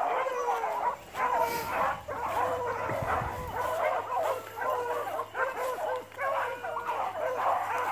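A pack of beagles baying on a rabbit's track, many hound voices overlapping without a break. This is the pack giving tongue as it runs the scent.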